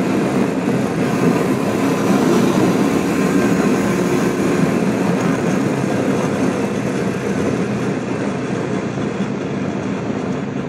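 Royal Enfield Classic 350's single-cylinder engine running steadily under way, mixed with wind rush on a helmet microphone, easing off slightly near the end.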